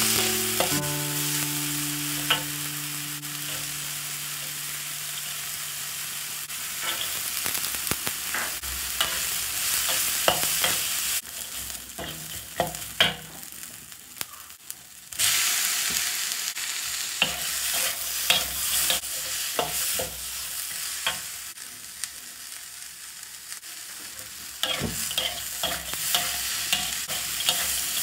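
Diced sausage, onion and vegetables sizzling in a wok, stirred and tossed with a metal spatula that scrapes and clicks against the pan. The sizzle drops off twice for a few seconds and comes back louder.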